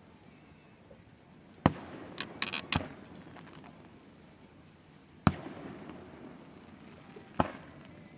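Fireworks bursting in the distance: three single sharp booms, each trailing off in a short rumble, with a quick run of crackling pops about two seconds in.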